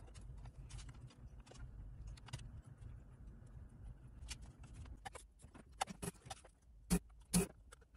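Small clicks and taps of pliers and fingers working a strip of small incandescent lamps and their wires on an amplifier's lamp board, over a low steady hum. About 5 s in the hum drops away and a handful of sharper, louder knocks follow as the circuit board is handled on the bench, the loudest a pair around 7 s.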